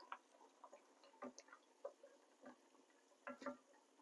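Cannellini beans in their broth simmering in a skillet: faint, irregular soft pops of bubbles bursting, about ten of them with gaps of a fraction of a second to a second between.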